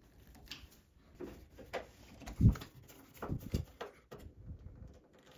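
Hand screwdriver tightening sheet-metal screws into a washer-dryer's steel frame: scattered small clicks and taps, with louder knocks about two and a half and three and a half seconds in.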